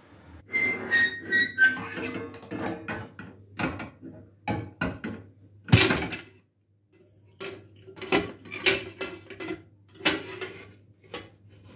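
Stainless steel pressure cooker and its lid being handled: a string of metal clanks, clicks and knocks, with a few brief metallic ringing tones near the start and one sharp knock about six seconds in. Toward the end the lid is unlocked and opened, the cooker having cooled and lost its pressure.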